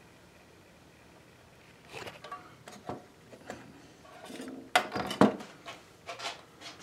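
Small hard parts being handled on a workbench: scattered light clicks and clinks beginning about two seconds in, with two sharper knocks close together about five seconds in.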